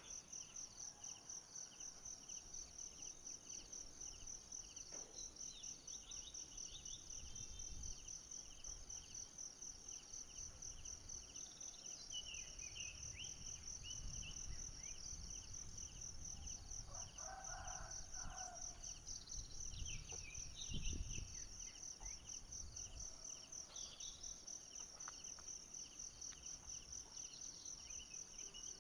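Steady high-pitched insect trilling in a fast pulse, with a lower pulsing trill beneath it, and a few scattered bird chirps. A brief low rumble comes about two-thirds of the way through.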